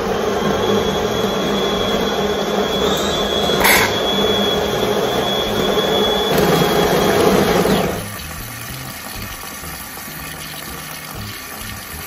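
DeLonghi PrimaDonna S Deluxe ECAM 28465M super-automatic espresso machine frothing milk through its Latte Crema milk carafe for a cappuccino: a loud, steady steam hiss with a thin high whistle through the middle and a short click about four seconds in. The hiss drops to a quieter level about eight seconds in.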